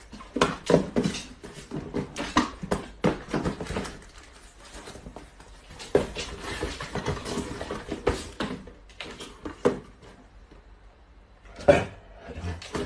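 Small cardboard boxes being handled, stacked and set down: an irregular run of knocks and rustles, thickest in the first four seconds, with a single louder knock near the end.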